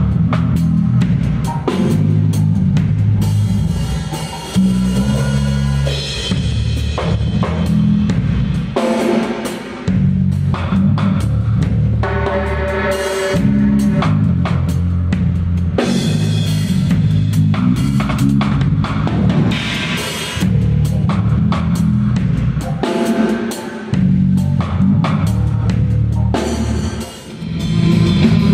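Elrick Gold Series 5 five-string electric bass played through an amplifier, a line of low held notes changing every second or two, with a drum kit playing along.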